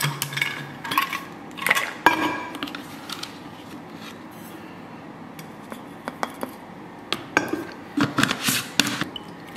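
Plastic scoop knocking and scraping in a plastic tub of protein powder and tapping over a stainless steel water bottle, a cluster of sharp clicks and knocks in the first two seconds. After a quieter stretch, more clicks and knocks come about seven seconds in as the tub's plastic lid is put back on.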